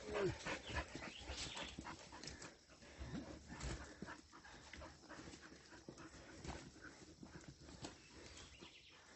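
Dogs on a steep dirt trail: a short falling whine at the start, then irregular scuffing and crunching steps.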